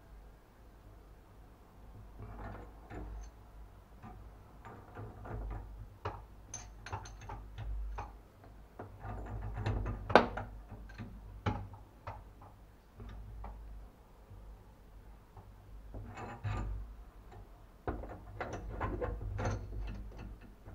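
Irregular clicks, knocks and small rattles of tools and parts being handled, in clusters, with one sharp knock about ten seconds in.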